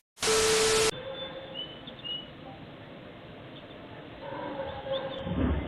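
A loud burst of hiss with a steady tone in it, lasting under a second, then a quiet outdoor background with two short faint chirps, likely a bird.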